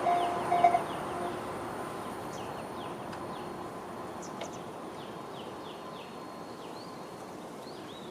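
Japanese level crossing's electronic alarm, in the JR standard tone, sounding its last repeated dings and stopping about a second in as the warning ends. Then birds chirp in quick, short, falling notes, with some rising calls near the end.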